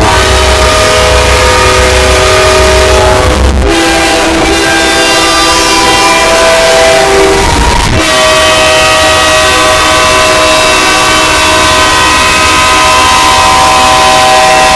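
Train air horns blowing a held multi-note chord, boosted so loud it is heavily distorted. The chord cuts abruptly to a different horn about 3.5 seconds in and again about 8 seconds in.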